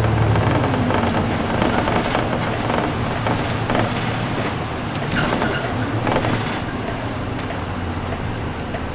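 City bus running with engine hum and road noise heard from inside the cabin; the low engine hum is strongest at the start and eases off after about a second. Two brief sharp sounds come about five and six seconds in.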